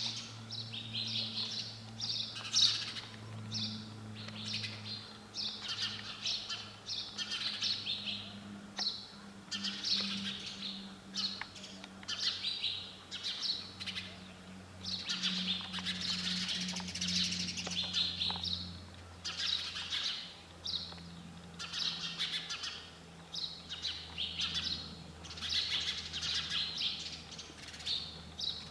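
Sparrows chirping in a constant, busy run of short, high chirps, with a faint low steady hum underneath.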